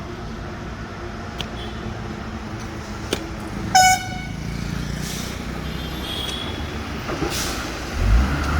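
Steady road-traffic noise with one short, shrill truck horn blast about four seconds in, the loudest sound. A low rumble swells near the end.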